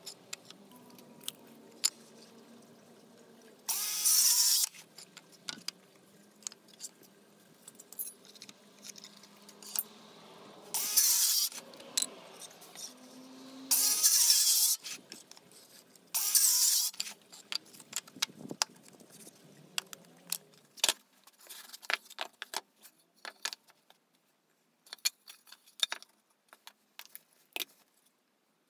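Small circular saw making four short crosscuts through pallet wood, each cut lasting about a second. Between the cuts and toward the end, wooden pieces are handled and set down in a run of sharp clicks and knocks.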